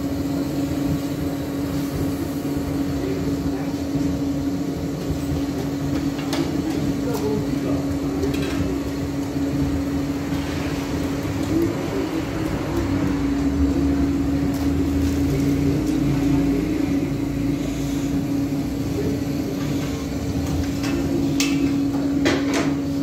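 Steady machine hum in a working bakery, holding one fixed pitch throughout, with a few sharp knocks and clatter from tools and trays.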